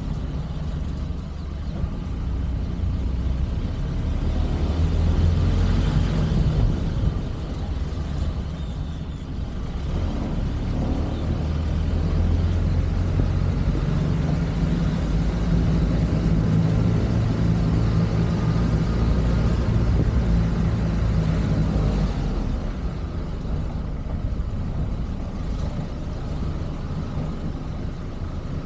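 Car engine running and tyres rolling on the street as the vehicle drives slowly; the engine note grows louder and holds steady for several seconds in the middle, then eases off.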